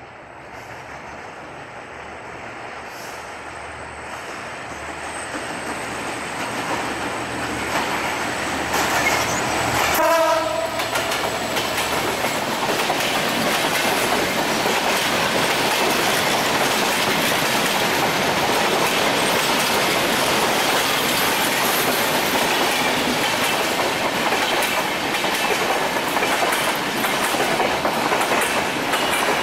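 Bangladesh Railway EMD GT42ACL diesel locomotive, with its two-stroke EMD 710 prime mover, approaching and growing steadily louder. About ten seconds in it gives one short horn blast as it draws level. Then the LHB passenger coaches roll past, their wheels giving a steady clickety-clack on the rails.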